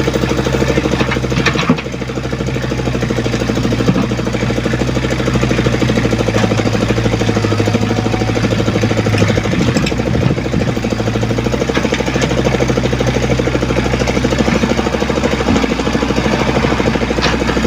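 Diesel engine of a Komatsu PC75UU mini excavator running steadily, its low note shifting briefly about halfway through, with a few light knocks.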